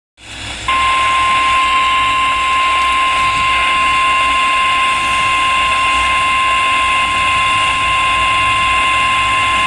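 Emergency Alert System attention signal for a severe thunderstorm warning: the single steady 1050 Hz weather-radio warning tone, starting about half a second in and held for about nine seconds over a steady hiss.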